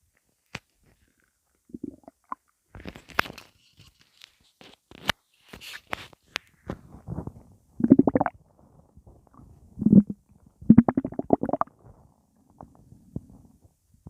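Human stomach gurgling and rumbling in irregular bouts, with sharp little pops between them; the loudest gurgles come in the second half. It is gas moving through an empty stomach.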